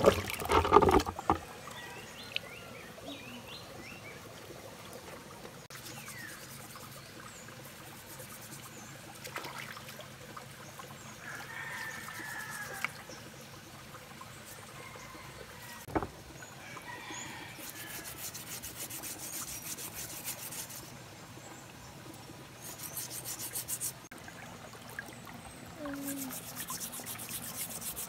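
A basin of peeled pieces tipped into a shallow stream with a loud splash at the start, then water trickling over rocks while the pieces are rubbed and rinsed by hand. Birds call, and insects buzz in several spells in the second half.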